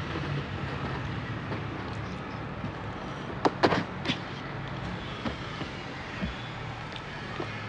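Eating by hand from a paper food box: fingers working biryani rice, with a few sharp clicks or crinkles about three and a half to four seconds in, over a steady low hum.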